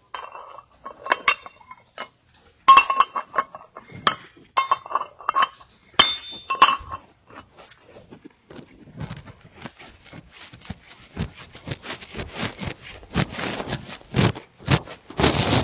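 Steel nuts clinking against the studs and cap of a large bore check valve as they are set on and run down the greased studs. The first half is separate ringing clinks; from about halfway it turns into a denser, quicker run of rattling and scraping.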